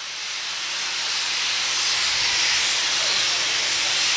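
Pennsylvania Railroad 0-6-0 steam locomotive #643 venting steam: a loud, steady hiss that swells over the first couple of seconds.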